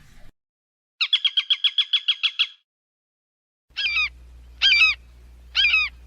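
Bird calls: a rapid trill of about fourteen short, high chirps, then after a pause three separate short calls with a bending pitch, about a second apart, over a faint low hum.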